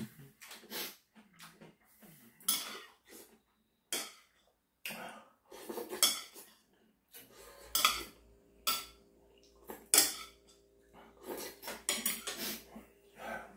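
Mukbang eating sounds: stainless chopsticks clinking and scraping against a ceramic bowl and plate, in irregular sharp clicks, mixed with short slurps of noodles and broth. A low steady hum comes in about seven seconds in.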